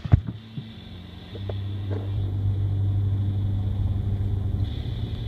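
A steady low engine hum with a rumble, growing louder about a second and a half in and then holding, with a faint high whine over it. A knock or two at the very start.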